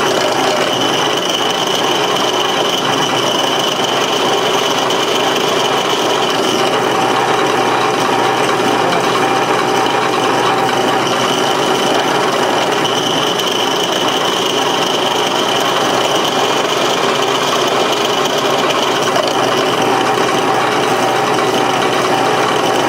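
Small power drill running steadily with its bit cutting a pocket-clip screw hole in a folding knife's handle, with a constant high whine over the grinding of the cut.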